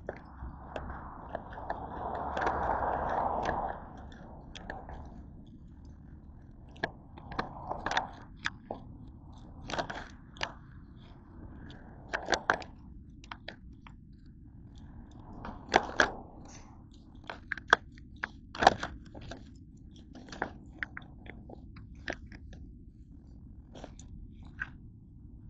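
A person eating fast food close to the microphone: irregular chewing and crunching, with a louder stretch of noise about two seconds in.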